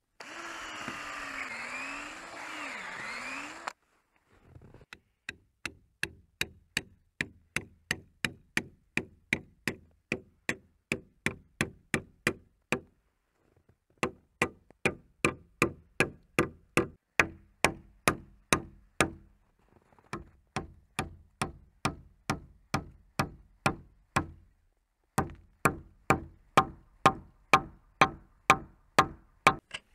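A power drill runs into a log beam for a few seconds, its pitch wavering under load. Then a hammer strikes a steel rod driven into the drilled hole, about two sharp blows a second, in runs broken by short pauses.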